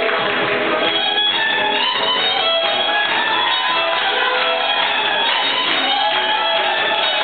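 Live Romanian lăutari (taraf) music: a violin plays a melody with sliding notes over the band's accompaniment. The violin is sounded by moving the instrument itself against a bow held still by another person.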